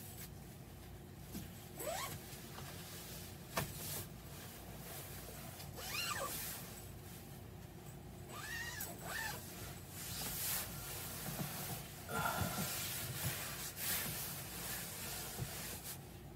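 Hammock fabric and bug net rustling as a person climbs in and settles, with the bug-net zipper drawn along from the inside. It comes as a string of short swishes and a few light clicks.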